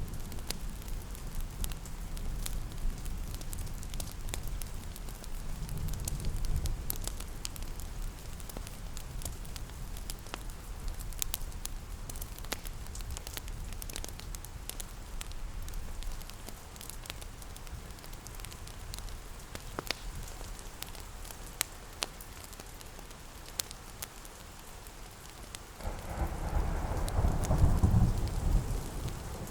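Steady rain with scattered sharp crackles of a wood fire. A low rumble swells briefly about six seconds in, and a louder one near the end.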